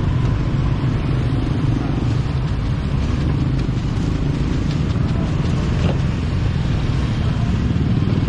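Steady low engine rumble with street noise, unchanging throughout.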